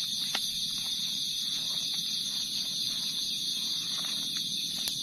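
Chorus of night insects, a steady high-pitched shrill drone that does not let up, with a couple of faint clicks.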